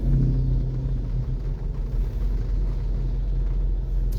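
Steady low rumble inside a car's cabin while driving in heavy rain.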